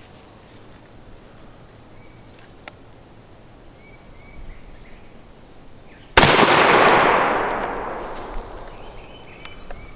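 A single shot from a Mossberg 935 12-gauge semi-automatic shotgun firing a 2¾-inch shell of No. 5 turkey shot, about six seconds in: a sharp, loud report whose echo fades away over about two seconds.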